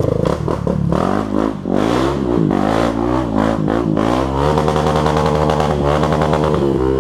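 Dirt bike engine revving up and down several times, then holding a steady speed for the last couple of seconds.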